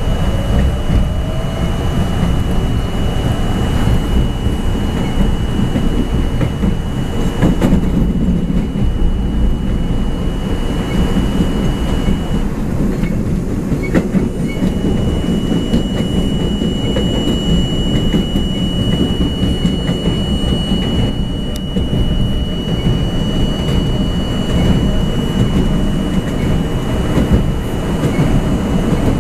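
Subway train running at speed, heard from the front of the lead car: a steady rumble of wheels on rail. A thin high whine runs over it and drops out briefly about halfway through.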